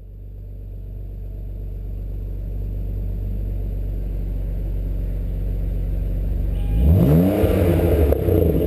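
BMW 325ci straight-six idling through an aftermarket DTM-style single-inlet, dual-outlet muffler, growing louder over the first few seconds; about seven seconds in the engine is revved, its exhaust note rising sharply in pitch and getting loud.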